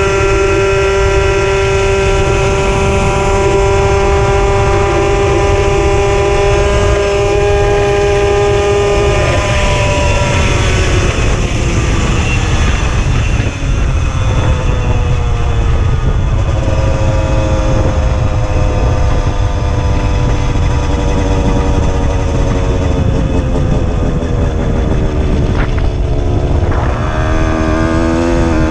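Puch Maxi moped's 49 cc two-stroke single-cylinder engine running at a steady pitch, then falling in pitch about a third of the way in as the moped slows, with a further dip and pick-up near the end. Heavy wind rumble on the microphone.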